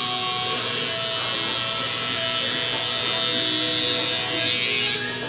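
Electric barber clippers buzzing steadily against the hair during a fade haircut, cutting off sharply near the end. Faint background music plays underneath.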